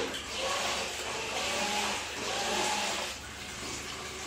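RC crawler's electric motor and drivetrain running fully submerged, its spinning wheels churning the water: a motor whine under a rushing, bubbling wash that swells and dips a few times. It still runs under water because its receiver has been waterproofed.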